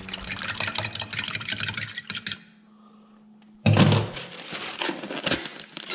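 Rapid crackling clicks from fish-cleaning handling over a low steady hum. After a sudden cut about two-thirds of the way in, there is louder clattering and rustling as a wire rack and a plastic bag are handled in a stainless steel kitchen sink.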